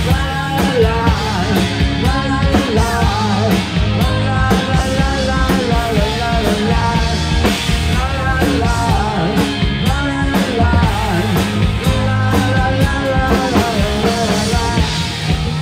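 Live rock band playing a song, with electric guitar and a drum kit, loud and steady throughout.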